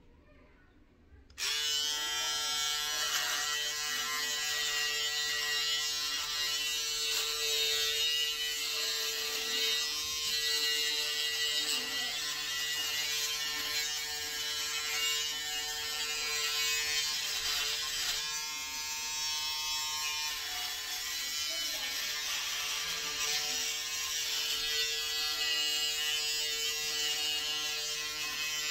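Braun Series 5 (50-W4200cs) electric foil shaver switched on about a second in, then running with a steady buzzing hum as it is pressed against the stubble on the chin and upper lip.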